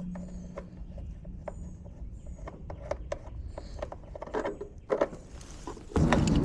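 Scattered light clicks and knocks with short high chirps over them; about six seconds in, a loud steady mechanical noise starts.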